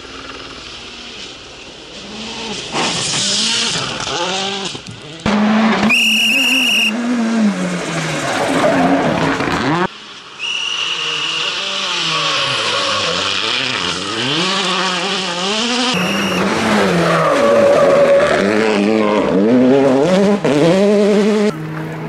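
World Rally Cars with 1.6-litre turbocharged four-cylinder engines passing one after another, engines revving hard and falling back through gear changes. A high whine rides over some of the passes.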